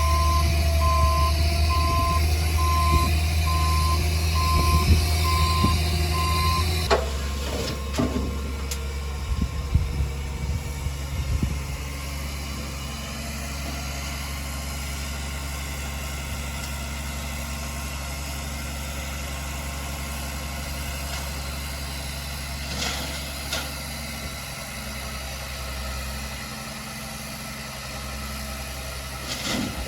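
Heavy earthmoving machine's diesel engine running, with a reversing alarm beeping at a steady pace for the first several seconds. Then the engine drops to a quieter steady idle, with a few knocks and clanks just after the beeping stops.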